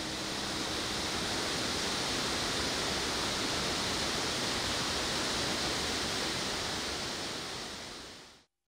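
Waterfall rushing down over rocks: a steady, even rush of falling water that fades out near the end.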